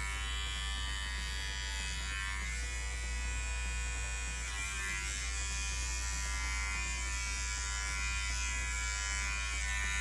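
Cordless electric hair clippers with a guard comb running steadily as they are pushed up the side of the head.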